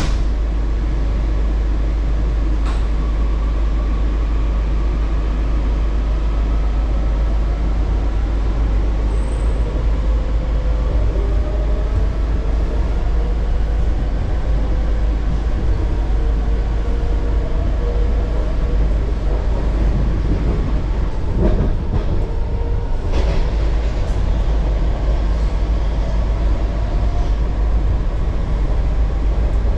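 Metro train running along the track: a steady low rumble with a motor whine that glides slowly in pitch, and a few sharp clicks about two-thirds of the way through.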